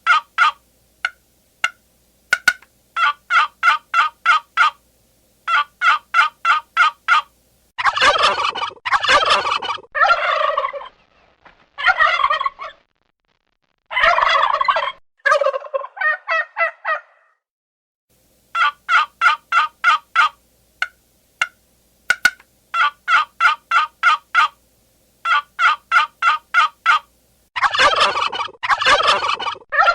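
Turkey calling: short runs of rapid, evenly repeated notes, broken by several longer rattling gobbles.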